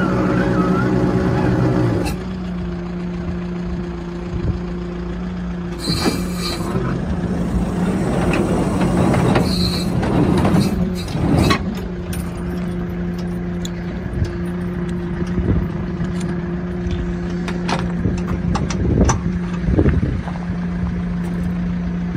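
Steady hum of a Kia Bongo3 K2700 ladder truck running its engine-driven hydraulic system, with occasional clunks and rattles from the ladder and its roller carriage.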